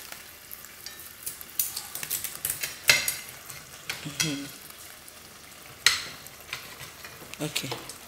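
Kitchen utensils clinking and scraping: a chef's knife cutting a tilapia into pieces on a ceramic plate and a metal spoon stirring a pot on the stove. Several sharp clinks, the loudest about three seconds in, over a faint steady hiss.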